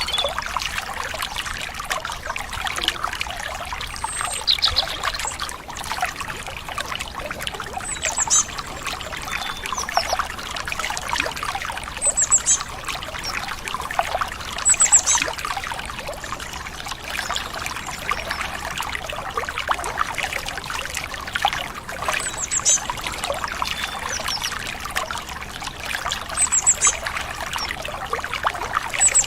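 Stream water running and trickling steadily, with short high bird chirps every few seconds.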